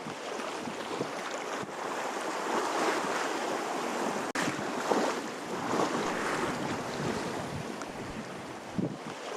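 Wind buffeting the microphone over water rushing and splashing along a sailboat's hull, rising and falling in surges, with a momentary dropout a little before the middle.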